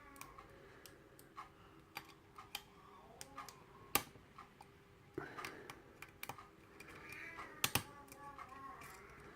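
Scattered small metallic clicks and taps of lock picks and a tension wrench being handled at a pin-tumbler lock. A sharper click comes about four seconds in and another near eight seconds.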